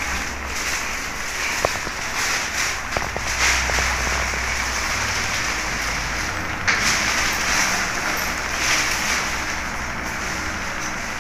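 Hands being washed under a running tap: a steady splashing hiss of water that swells about three and a half seconds in and again near seven seconds.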